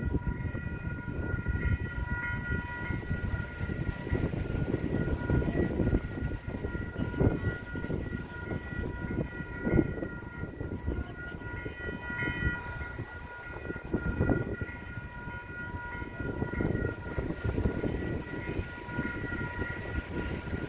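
A distant Metrolink train approaching, its locomotive horn sounding in long steady blasts that fade and return, over a steady low rumble.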